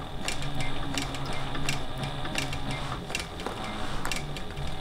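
Sailrite Deluxe Fabricator walking-foot sewing machine stitching slowly through layered packcloth. Its motor hums steadily with a clack at each stitch, about two a second.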